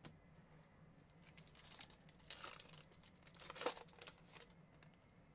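Foil wrapper of a 2021 Bowman trading-card pack being torn open and crinkled by hand, a run of crackling rustles starting about a second in and ending shortly before the close, loudest near the end of the run.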